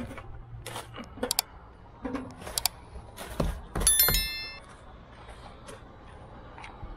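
Animated subscribe-button sound effects: a series of sharp mouse clicks, then a bright metallic notification-bell chime about four seconds in, ringing for about half a second.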